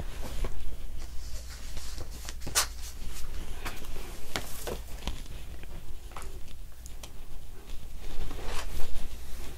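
Sheets of printed sticker paper being rustled and shuffled by hand, in irregular short crinkles and taps, over a low steady hum.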